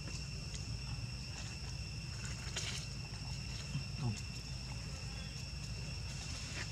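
Insects, crickets or cicadas, trilling steadily as one continuous high tone. Under it is a low rumble, and a short low falling sound comes about four seconds in.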